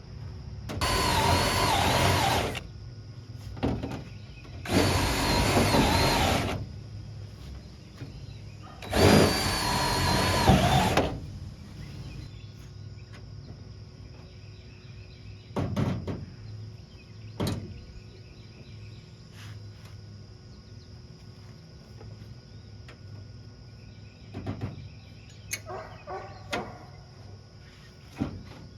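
A handheld power drill runs in three bursts of about two seconds each, its motor whine wavering under load as it drives fasteners into sheet-metal body panels. A few light knocks and clicks follow.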